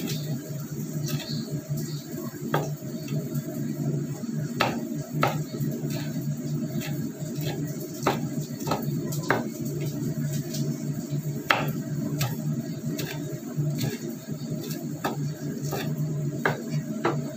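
Chef's knife slicing red chillies on a wooden cutting board: irregular knocks of the blade on the board, about one or two a second, over a steady low hum.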